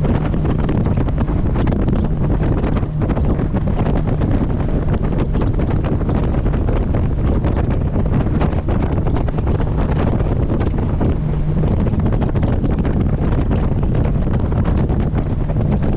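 Wind buffeting the camera microphone on a motorboat under way, over the steady hum of its engine and the rush of water along the hull.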